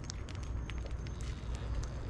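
Molten copper pouring from a hot crucible into an ingot mold: scattered sharp crackles and ticks over a steady low rumble.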